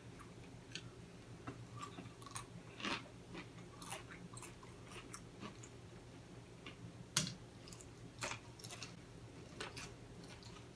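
Quiet chewing and biting of waffle-iron-pressed macaroni and cheese, with scattered small clicks of forks on plates, the loudest about 7 seconds in. A low steady hum runs underneath.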